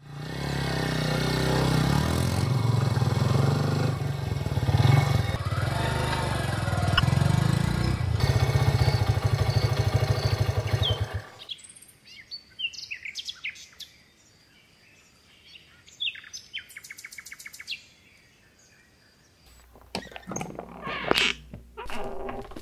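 Small commuter motorcycle engine running with a steady low rumble, cutting off suddenly about eleven seconds in. Afterwards birds chirp, with a rapid run of clicks and a few sharp knocks near the end.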